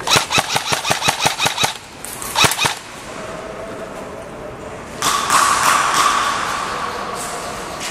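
Airsoft rifle firing a rapid string of shots, about seven a second for nearly two seconds, then a short second burst. About five seconds in, a rushing hiss lasts for a couple of seconds.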